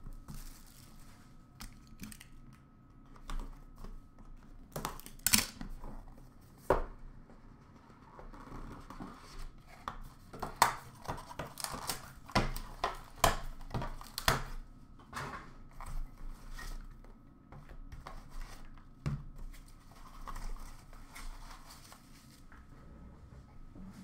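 Plastic shrink wrap being torn and crinkled off a sealed trading-card hobby box, then the cardboard lid lifted off and small card boxes set down on a glass counter, with many sharp taps and knocks throughout.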